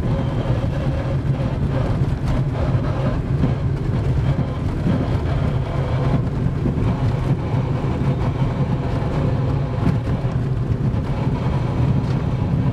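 Lada Granta's gearbox howling while the car is driven, heard from inside the cabin as a steady drone over the engine and road noise. The gearbox makes terrible noises while moving, and the owner fears it is finished.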